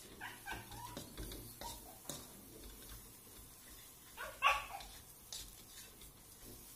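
A dog barking: a few short barks in the first second and a louder bark about four seconds in. Light clicks and scrapes of a spatula against a wok, tossing cereal-coated prawns, run underneath.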